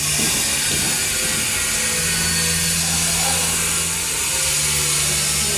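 A power tool running steadily, a constant hissing whir.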